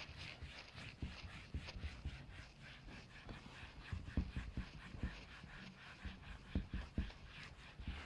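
Whiteboard duster rubbing back and forth across a whiteboard, a faint, rhythmic scrubbing at about three strokes a second, with a few low knocks.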